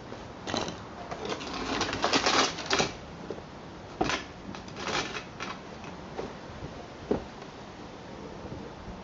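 Irregular knocks, clicks and scrapes of wooden pallet boards being handled and repositioned: a busy cluster of scraping and knocking in the first three seconds, then a few single knocks.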